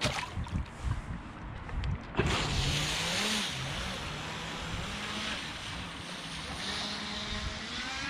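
Pro Boat River Jet RC jet boat setting off, running on a 3S battery. After a few low thumps, its electric motor and water-jet drive start about two seconds in with a sudden rush of spray and a whine whose pitch rises and falls with the throttle.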